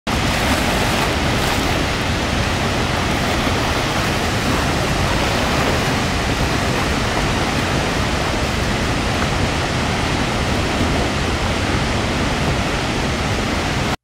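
Steady, even rush of falling water from a waterfall, loud and unbroken.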